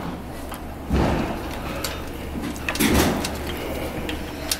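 E-bike wiring harness cables and connectors being handled and rubbed against the bike frame, with two louder scraping rustles about one and three seconds in and a few light clicks.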